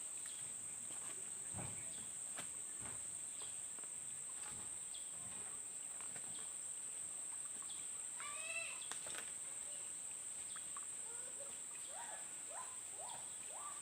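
Outdoor ambience dominated by a steady high-pitched insect drone, like cicadas or crickets. A few faint knocks come in the first half, and a short burst of bird-like calls comes about eight and a half seconds in.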